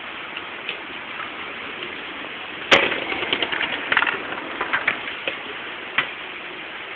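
Hard rain falling steadily, with a sharp crack a little under three seconds in, followed by a scatter of smaller clicks and crackles and one more sharp click near the end.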